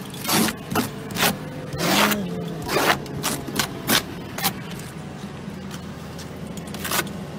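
Snow brush sweeping snow off a car's body in a run of quick scraping strokes, about nine in the first four and a half seconds, then sparser, picking up again near the end, over a steady low hum.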